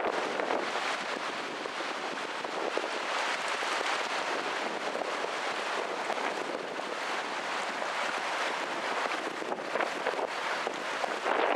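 Steady rushing of fast-flowing river water, an even noise with no breaks.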